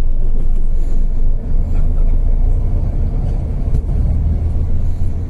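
Low, steady rumble of a city bus's engine and running gear, heard from inside the cabin while the bus drives.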